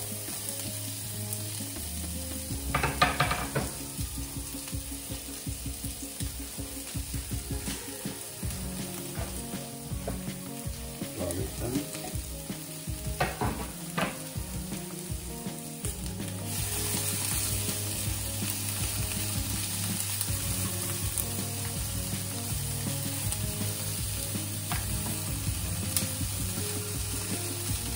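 Sliced sweet pepper, carrot and onion sautéing in hot oil in a non-stick frying pan: a steady sizzle, with a few sharp scrapes of the spatula about 3 and 13 seconds in. The sizzle gets louder about halfway through.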